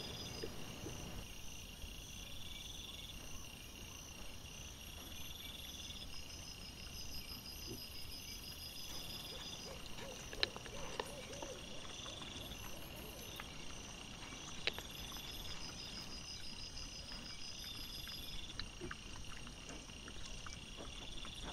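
Night insects trilling in evenly repeated high-pitched bursts at several pitches, with a few sharp clicks around the middle.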